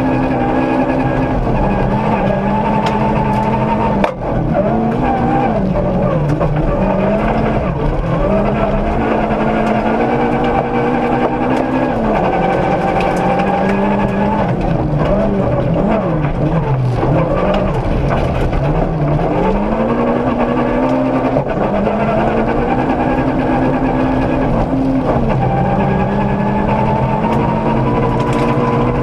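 Ford Ka rally car's engine heard from inside the cabin on a gravel stage, its revs climbing and dropping again and again through gear changes and lifts. There is a short drop-out in the sound about four seconds in.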